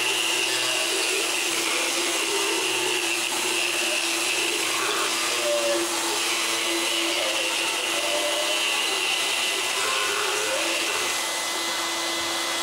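Motorized equine dental float running steadily with an even whine, filing down a horse's teeth.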